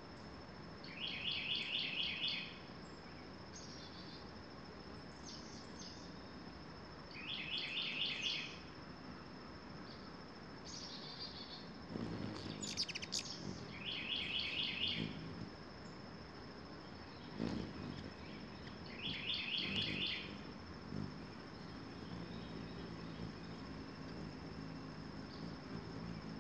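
A songbird singing a short song of rapid repeated notes, four times about six seconds apart, with a steady high thin tone underneath.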